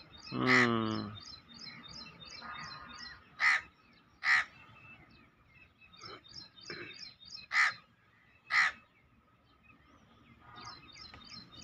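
Crows cawing: a longer harsh call about half a second in, then short caws in pairs about a second apart. A small bird chirps steadily in the background, about four chirps a second.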